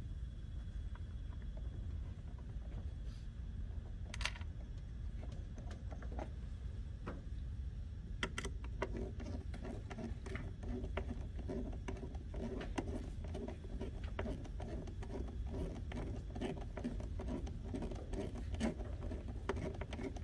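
Hand screwdriver turning screws into the plastic mount of a mower's drive circuit board: a few scattered clicks and handling knocks, then from about eight seconds in a steady run of small, quick clicks and scrapes as the screws are driven, over a low steady hum.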